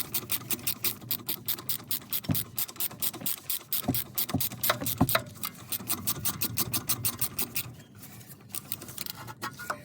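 Ratchet with a hex bit clicking in a fast, even rhythm, about six or seven clicks a second, as the brake caliper's guide bolts are unscrewed; the clicking thins out near the end.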